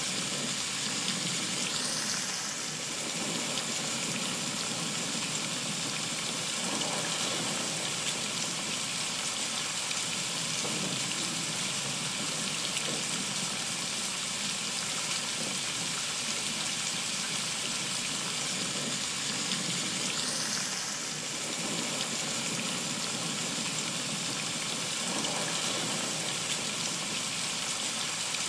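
Heavy rain falling steadily: an even, unbroken hiss of countless drops.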